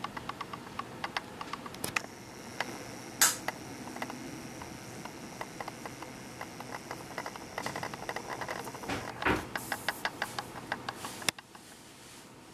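Irregular clicking and rattling from inside a Canon S100 compact camera, picked up by its own microphone while filming: the abnormal rattle the owner hears mostly when zooming in. A faint steady high whine runs under the clicks through the middle, and the rattling mostly stops shortly before the end.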